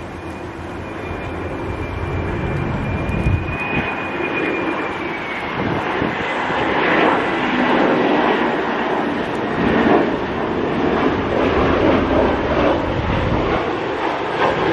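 Airbus A320-216 airliner with CFM56 jet engines flying low on approach with its gear down, growing louder as it nears. A thin high engine whine sounds over the roar and fades after about five seconds.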